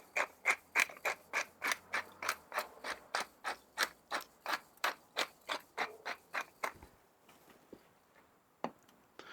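Pepper mill grinding black peppercorns: an even run of crunching clicks, about three a second, that stops about seven seconds in, with one more click near the end.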